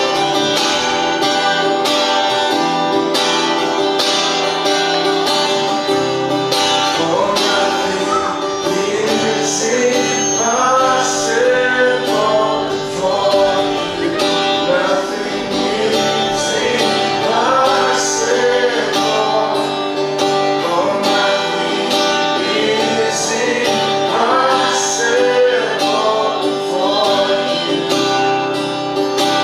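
Worship song with strummed acoustic guitar and a steady beat; singing voices come to the fore about nine seconds in.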